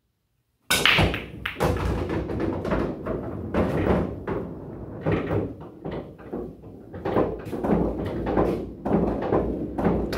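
9-ball break on a Valley bar-box pool table: a sharp crack of the cue ball into the rack about a second in, then the balls knocking together, hitting the cushions and rolling, with some dropping into pockets.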